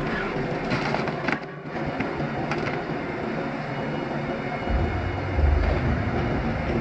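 Heavy machinery running, a steady mechanical clatter and rumble. A deeper low rumble comes in about two-thirds of the way through.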